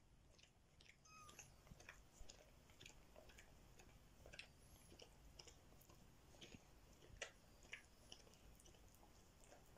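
Near silence with faint scattered clicks of licking and suckling, a slightly louder click about seven seconds in, and a few thin, short squeaks from newborn kittens.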